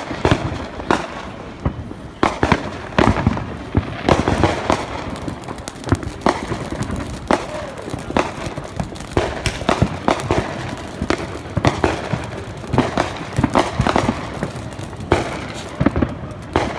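Fireworks and firecrackers going off in rapid, irregular sharp pops and cracks, several a second, over the continuous hiss of a ground fountain firework spraying sparks.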